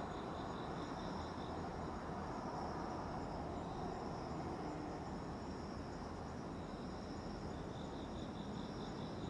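Night insects, crickets, chirping in a steady high chorus of several overlapping trills. One lower-pitched pulsing trill stops about a second and a half in and starts again near the end, all over a low steady background rumble.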